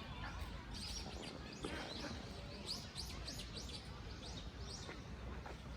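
Small birds chirping, with many quick high chirps several times a second, over a steady low outdoor rumble.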